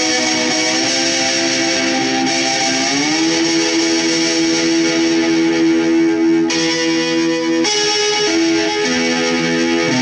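Metal-bodied lap steel guitar played with a steel bar through an amplifier: sustained chords that slide up in pitch about a second in and again around three seconds in, then a long held chord, with note changes near the end.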